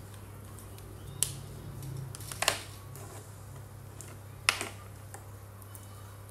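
Plastic felt-tip marker pens clicking against a tabletop as they are picked up, set down and rearranged: three sharp clicks, a little over a second apart and then two seconds, over a steady low hum.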